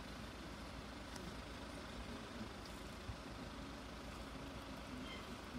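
Faint steady background rumble of road traffic, with an engine idling.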